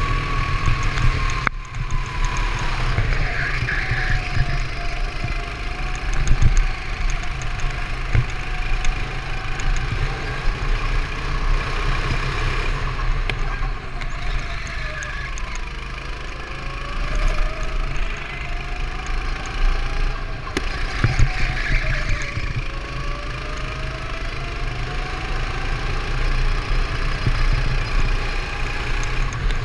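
Racing go-kart engine running under load, its pitch dropping and climbing again several times as the kart slows for corners and accelerates out of them. Low wind rumble on the microphone underneath.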